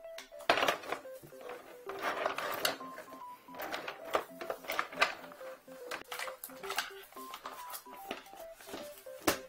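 Clatter and rustle of drain-inspection camera gear being packed away: cable and hose coiled into a plastic case and the monitor case handled, with sharp knocks about half a second in and near the end. Under it runs a simple background melody of plain beep-like notes.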